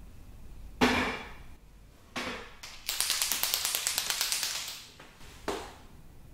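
A liquid chalk marker shaken so that its mixing ball rattles, a fast, even clicking for about two seconds. It is preceded by a sharp knock and a smaller one, and followed by another knock.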